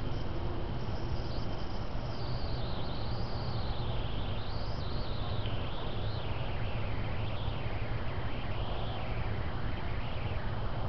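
Steady low electronic hum and hiss from a trail camera's own recording circuit. Through most of it come faint, wavering high-pitched calls of night animals, sweeping down and up.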